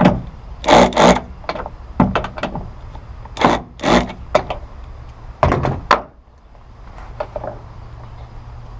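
Cordless drill driving the bull ring's mounting screws in several short bursts of the trigger during the first six seconds, as the screws are snugged down tight.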